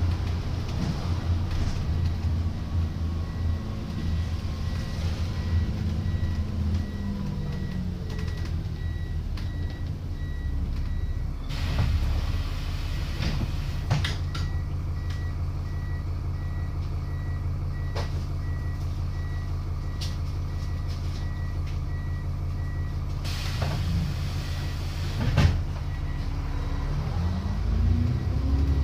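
Plaxton President double-decker bus engine slowing and settling to an idle, with a rapid steady beeping over it for much of the time. Two hisses of air come about twelve seconds in and again near twenty-three seconds, with a few sharp clicks. Near the end the engine revs up again as the bus pulls away.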